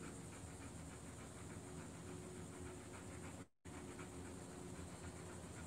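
Bernese mountain dog panting rhythmically and faintly, over a low steady hum. The sound cuts out completely for a moment about halfway through.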